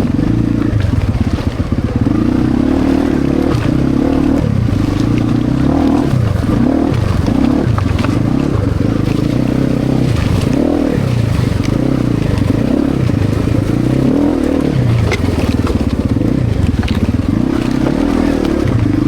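Motorcycle engine running under way, its pitch rising and falling every second or two as the throttle is opened and closed.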